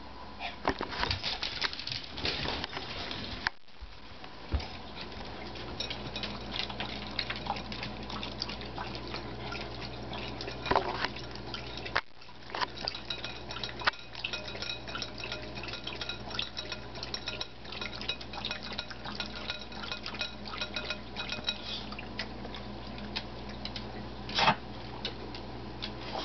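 Two small dogs scuffling close to the microphone on a hardwood floor: a busy run of light clicks and ticks, with a few louder knocks about 11 and 24 seconds in.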